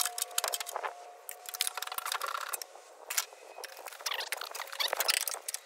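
Metal pry bar scraping and clicking against an old fuel tank and the trunk sheet metal as the tank is levered loose, with a thin steady squeak through the first two seconds.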